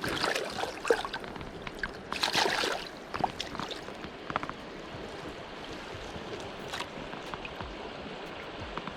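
River water flowing steadily, with a few brief splashing and rustling noises in the first three seconds.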